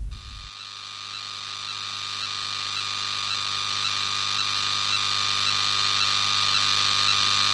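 Harsh static-like glitch noise over a steady electric hum with a few fixed tones, swelling steadily louder throughout.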